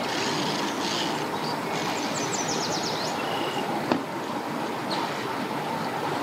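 Steady rushing outdoor background noise, with a few short high chirps around two to three seconds in and a single sharp knock just before four seconds.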